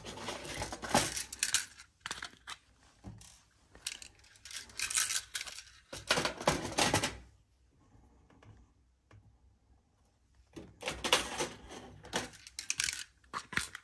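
LEGO pieces rattling and clicking in a clear plastic small-parts drawer as it is pulled out of its cabinet and handled. The clatter comes in three spells of rapid clicking, around the start, the middle and near the end, with quiet gaps between.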